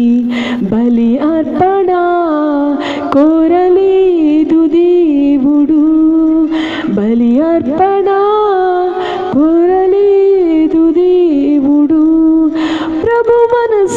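A woman sings a Telugu devotional song into a microphone, drawing out long held notes that slide up and down between short breaths.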